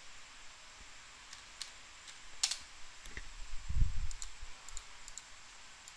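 Computer keyboard and mouse clicks as a value is typed in: scattered clicks, a sharper one about two and a half seconds in, and a quick run of key taps between four and five seconds in. Just before that run comes a dull low thump, the loudest sound.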